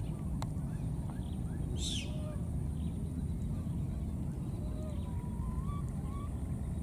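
Scattered faint, short high chirps and squeaks from small animals, with one louder shrill squeal about two seconds in, over a steady low rumble.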